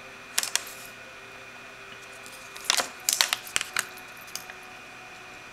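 Sharp clicks and light taps from handling a plastic G-Shock watch: a click about half a second in, then a quick run of several clicks a couple of seconds later.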